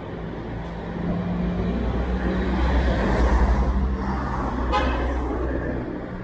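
Street traffic: a motor vehicle's engine drone swells as it passes close, loudest about three seconds in, then fades. A short sharp sound cuts in about five seconds in.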